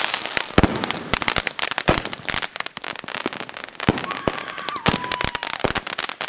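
Fireworks going off in rapid succession: a dense string of sharp bangs and crackles, with a thin whistling tone from about four seconds in.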